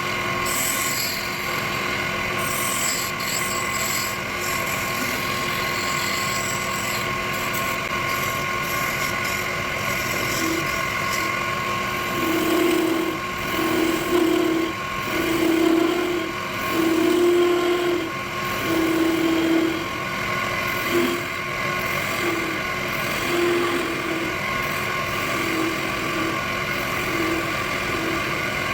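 Wood lathe running with a steady motor hum, while a tool works the spinning wood. Midway comes a run of louder pulses, about one a second, for several seconds.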